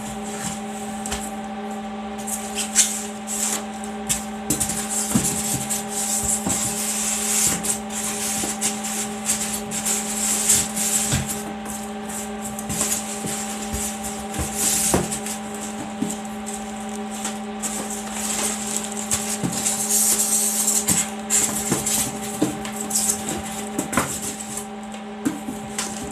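Plastic packaging and wrapping rustling and crinkling in irregular bursts, with scattered light clicks and knocks, as a boxed printer is unpacked; a steady hum runs underneath.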